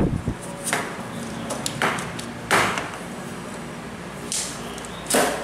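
Aluminium tube sections of a pole pruner's extension shaft being twisted and worked together by hand in their clamp coupling, to seat the locking pin. About five short scrapes and clicks come through, the loudest about two and a half seconds in.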